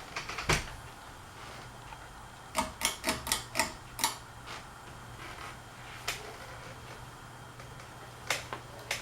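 Fanimation Belleaire ceiling fan switched to medium speed, its motor giving a low steady hum that comes in about three seconds in. Sharp clicks sound around it: one near the start, a quick run of six at about the time the hum starts, and a few single ones later.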